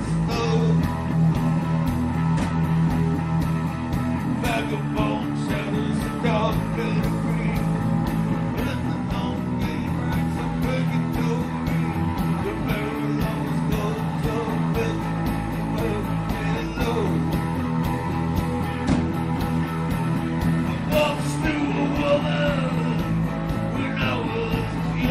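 Live rock band playing electric guitars and drums with a steady beat, with a vocal singing at times.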